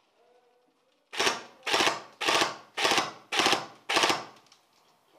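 Airsoft gun firing six sharp shots in a steady rhythm, about half a second apart.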